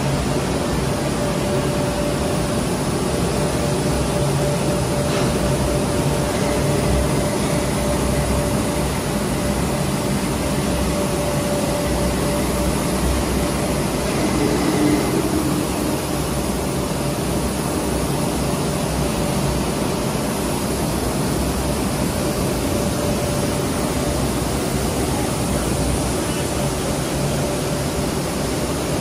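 An extrusion laminating and coating machine running steadily: even mechanical noise with a constant mid-pitched hum over it. A fainter higher tone joins for several seconds in the middle.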